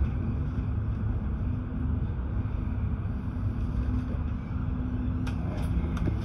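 Regional express train running, heard from inside the carriage: a steady low rumble of the wheels on the track with a faint steady hum, and a few faint clicks near the end.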